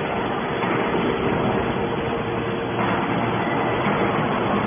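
Hydraulic scrap metal baler running: a steady machine hum and hiss from its pump and motor, growing a little louder about three seconds in.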